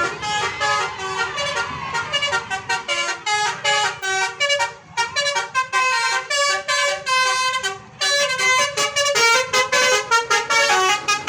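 Bus 'telolet' musical horn playing a fast melody of short, shrill notes one after another, with brief breaks about halfway and about two-thirds through.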